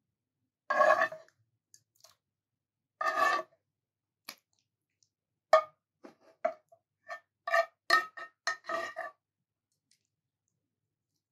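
Metal spoon scraping sauce out of a nonstick frying pan twice, then a quick run of sharp clinks as the spoon knocks against the cookware.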